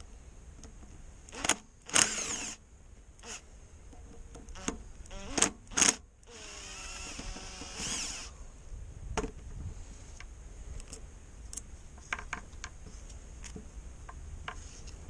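Hand tools clinking and knocking on metal parts as the vacuum pump is taken apart, with a power tool whirring for about two seconds in the middle and lighter clicks after it.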